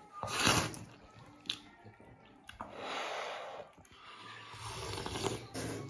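A man slurping hand-rolled wide noodles and then sucking the chili-vinegar broth from the rim of a steel bowl. A short loud slurp at the start, then two longer slurps of a second or more each.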